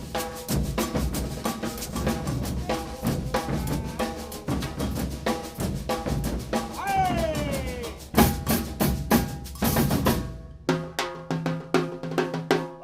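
Brazilian percussion ensemble playing an ijexá (afoxé) rhythm: dense, steady drum strokes with ringing pitched tones over them. About seven seconds in, a falling pitched glide sounds over the drumming.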